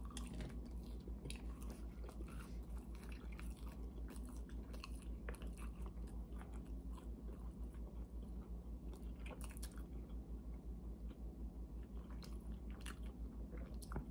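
Two people chewing breaded, sauce-dipped chicken bites: faint crunches and wet mouth clicks scattered throughout, over a low steady hum.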